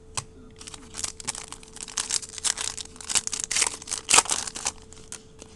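Trading-card pack wrapper crinkling and tearing as a pack is opened and the cards are handled, a quick run of rustles and clicks, loudest about four seconds in.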